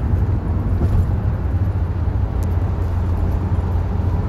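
Steady low drone of a 1992 Nissan Caravan's TD27 turbo diesel engine and road noise, heard from inside the cabin while cruising at highway speed.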